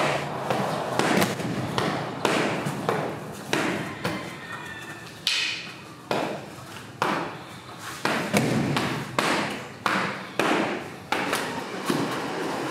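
A run of irregular thuds and knocks, roughly one every half second to second with a short lull in the middle, each with a brief echo like a large hall.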